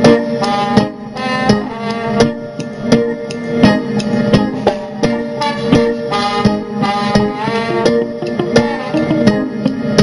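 Live band music played over a stage PA: electric guitar and other sustained pitched notes over a steady drum beat.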